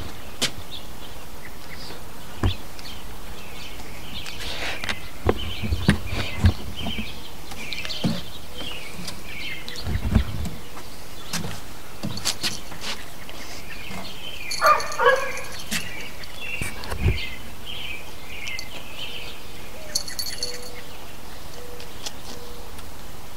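Birds chirping and singing outdoors in short repeated phrases over a steady background hiss. Scattered knocks and low thumps are heard throughout, and two short, louder calls come about fifteen seconds in.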